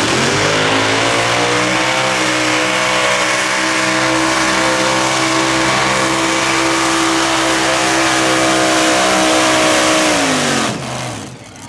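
Mini modified pulling tractor's engine at full throttle pulling the weight sled. The revs climb quickly at launch and hold steady and high, then fall away sharply near the end as the throttle comes off.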